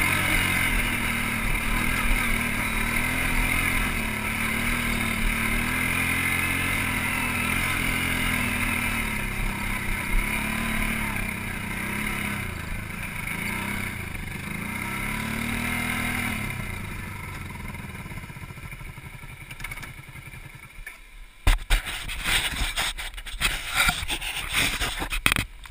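ATV engine running over a rough rocky trail, its speed rising and falling as the throttle is worked, then easing off and dying away about 20 seconds in. Near the end come irregular knocks and scrapes right at the microphone.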